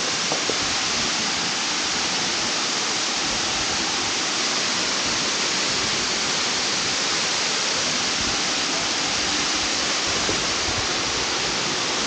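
Waterfall: water pouring and splashing in a steady, unbroken hissing rush.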